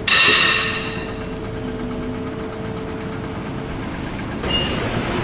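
An engine running steadily, with a sudden loud hiss at the start that fades away over about a second.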